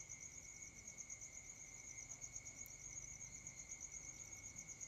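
Near silence with faint background noise: a steady high-pitched whine and a fast, even, high-pitched chirring.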